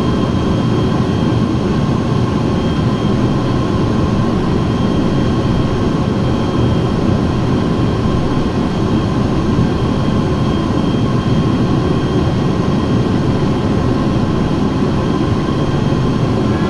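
Steady cabin noise of a Cessna Citation Sovereign climbing: the rear-mounted turbofan engines running at climb power, a dense even rush with a few faint steady whine tones over it.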